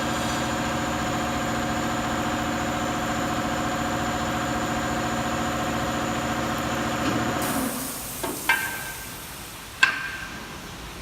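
Saw motor of a double-head aluminium cutting machine running steadily with an even hum, then switched off about seven and a half seconds in and winding down. Two sharp clacks follow, about a second apart.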